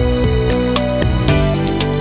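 Background music: a melody of short held notes stepping up and down over a steady beat.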